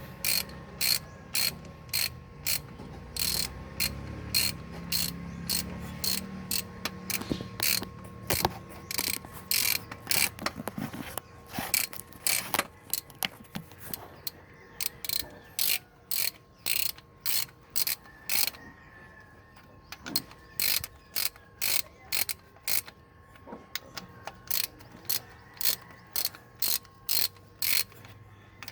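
Hand ratchet wrench clicking in steady strokes, about two to three clicks a second with a few brief pauses, as bolts are turned during an engine top overhaul. A low rumble runs under the first few seconds.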